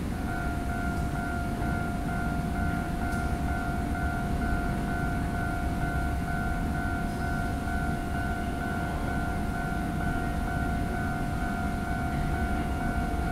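A steady electronic warning tone on a subway platform, starting just after the start and holding unbroken, over a constant low rumble. It is the platform's train-approach signal for the oncoming train.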